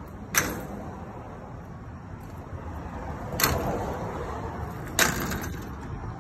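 Three sharp knocks or slaps on the dog kennel's wooden frame and wire panels, each followed by a brief rattle: one just under half a second in, then two more about a second and a half apart near the end. A steady low background noise runs underneath.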